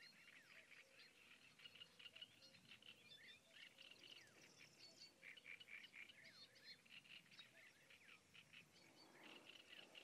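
Faint evening wildlife chorus: many quick, high chirps and short falling calls overlapping continuously, with a faint steady low call beneath them.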